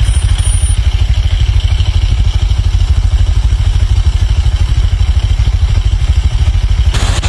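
A motor vehicle engine idling: a loud, low, evenly pulsing rumble. Near the end it cuts off abruptly to a steady hiss.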